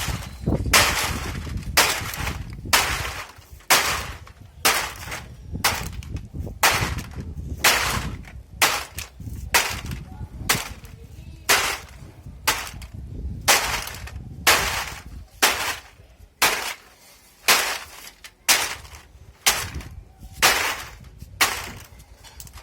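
Heavy hand tamper striking and crushing aluminium drink cans, sharp metallic blows at a steady pace of about one a second.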